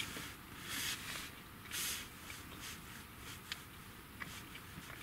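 Quiet tent interior with three short, soft hissing sounds in the first two seconds, then a few faint light taps of a stylus on a tablet screen.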